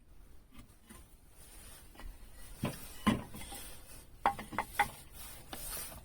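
Workbench handling sounds: two sharp knocks, then about four seconds in a quick run of four clinks with a short metallic ring, as tools or parts are picked up and set down.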